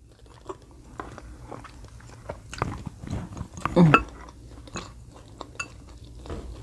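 A person chewing a mouthful of jollof rice close to the microphone, with small wet mouth clicks and smacks. A short, louder mouth sound comes about four seconds in.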